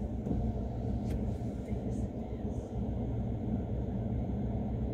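Dust devil wind gusting over the microphone: a steady low rumble.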